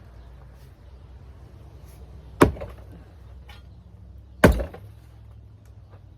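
Two heavy chopping strikes, about two seconds apart, of a hand tool into a hot tub's shell as it is broken apart.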